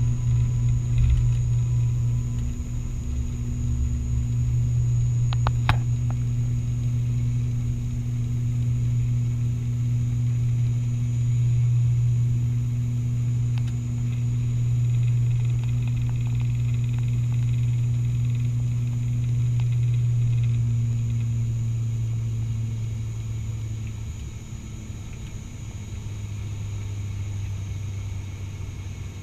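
ATR 72-600 turboprop engine and propeller at takeoff power, heard from the cabin beside the propeller as the aircraft rolls down the runway, lifts off and climbs: a loud, steady, low propeller drone. There is a brief clatter about six seconds in, and the drone drops slightly in pitch and level about 24 seconds in.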